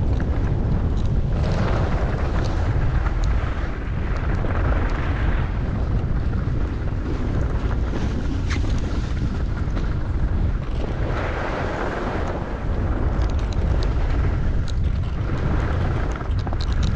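Wind buffeting the microphone, a steady low rumble, under skis scraping and hissing over snow. The hiss swells every three to four seconds as the skier turns back and forth.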